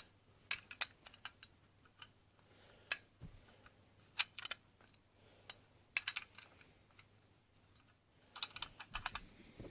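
Small, irregular clicks and taps of a spring-powered airsoft pistol's parts being handled and fitted together during reassembly, in scattered clusters with short pauses between.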